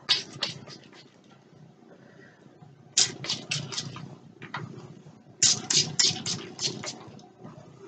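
Hand trigger spray bottle misting a water-and-aloe-vera-juice detangler onto the ends of hair, in quick runs of short hissing sprays: a few at the start, about five from about three seconds in, and about seven from about five and a half seconds in.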